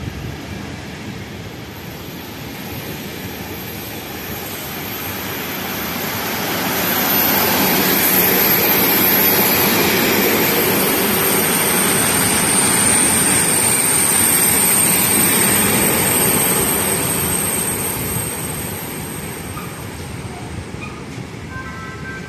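Container freight train wagons rolling past: a steady rumble of wheels on rail that swells in the middle and eases off again, with a thin high squeal above it in the loudest stretch.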